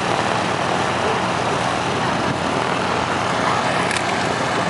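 Airplane engines running with a steady, loud rushing noise.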